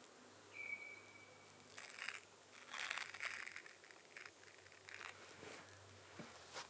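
Faint rustling and crinkling of clothing and hands as an arrow is handled and turned, in a few short bursts. A thin, steady high whistle-like note lasts about a second, starting about half a second in.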